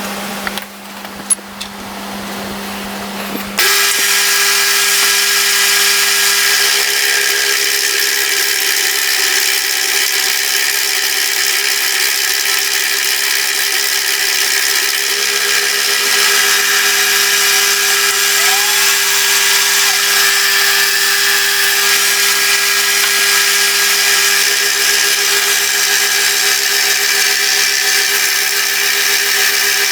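Milling machine running, with a couple of sharp clicks in the first two seconds. A few seconds in, a loud, steady cutting noise with a whine starts suddenly as the cutter works the motor-mount block.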